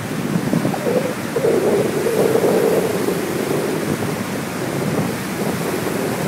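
Loud, steady rush of swollen river water at a dam during heavy rain, with wind buffeting the microphone. A low hum rises over it for a couple of seconds about a second in.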